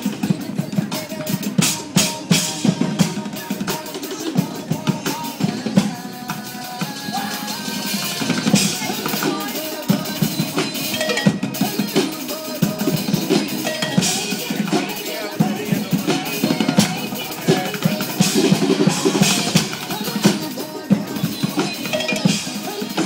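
Drum kit played by a street drummer: an unbroken run of fast snare and bass drum beats with cymbal hits.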